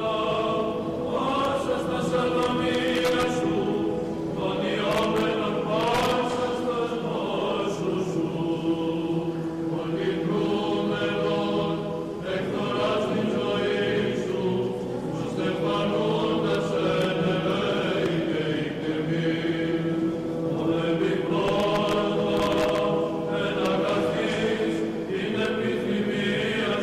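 Choir chanting a slow melody over a steady held drone note, in the style of Byzantine Orthodox church chant.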